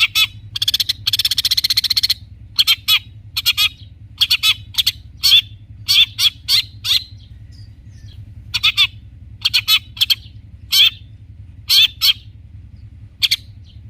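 Long-tailed shrike (cendet) singing: short harsh notes in quick pairs and triplets, with a rapid chattering run about a second in and a short pause around eight seconds.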